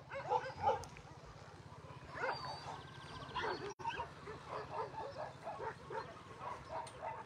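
Several dogs barking and yipping, faint and overlapping, in many short calls.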